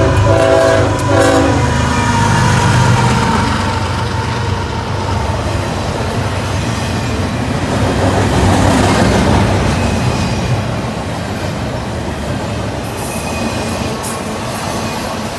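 CSX freight train passing close: the lead locomotive's horn ends about a second and a half in, then the diesel locomotives' engine rumble gives way to the rolling clatter of double-stack container cars going by, with a thin wheel squeal near the end.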